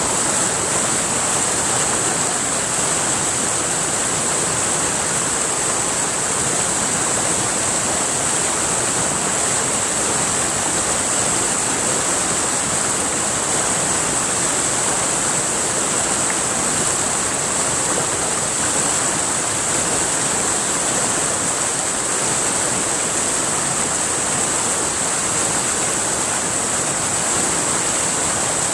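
River water rushing steadily, with a constant high-pitched hiss over it.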